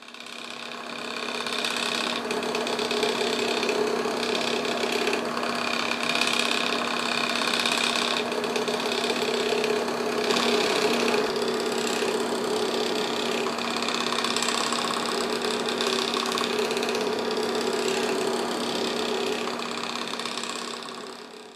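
Stepper motors of a small Arduino-driven wheeled robot running, a steady machine whine and buzz whose pitch pattern shifts every second or two as it drives and turns. Not exactly quiet.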